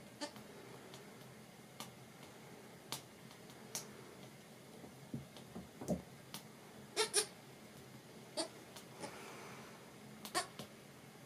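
Sparse, sharp taps at irregular intervals, with two close together about seven seconds in: a newborn goat kid's small hooves stepping on a plywood floor. A faint, short, low call sounds just before the middle.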